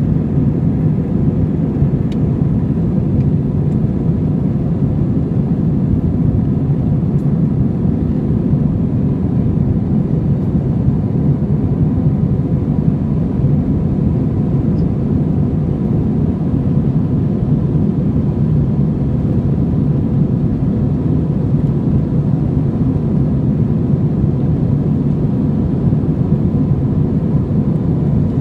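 Airliner cabin noise in flight: the steady low roar of the jet engines and rushing air heard through the cabin, with a faint, thin steady whine above it.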